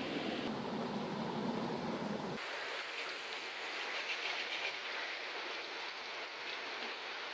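Flowing river water, a steady rush. About two and a half seconds in it cuts abruptly to a thinner, higher hiss.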